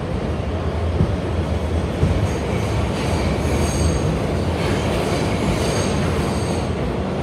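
Interior of a moving New York City Subway R160B car with Siemens propulsion: a steady rumble of the train running on the track, with a high-pitched squeal that comes in twice, from about two seconds in and again near five seconds, each lasting about two seconds.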